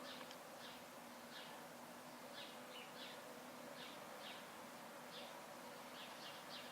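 Faint outdoor ambience: short high chirps repeating irregularly, about two a second, over a steady low hum.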